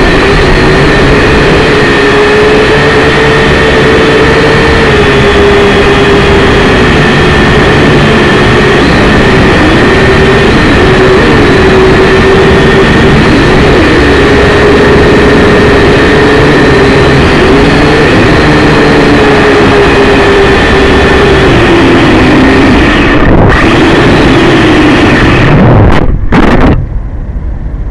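Syma X5C quadcopter's small coreless brushed motors and propellers whining loudly, the pitch wavering up and down with throttle. The whine cuts off abruptly shortly before the end.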